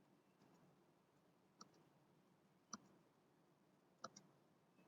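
Near silence with four faint, widely spaced clicks of computer keyboard keys, the last two close together.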